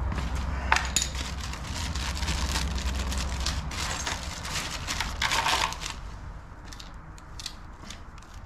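Clinking and rattling of small metal hardware being handled: a bolt, washers and a socket, with a brighter ringing clink about five seconds in. A low hum runs underneath and stops about halfway through.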